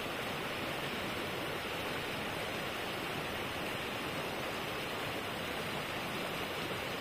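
Water from a full, overflowing reservoir pouring over a low spillway wall and rushing through the shallow channel below: a steady, even rush of water.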